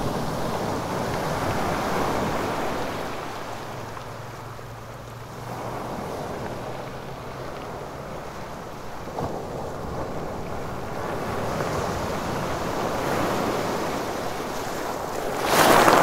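Sea waves breaking on a rocky beach, the surf swelling and drawing back every few seconds. A bigger wave crashes loudly near the end.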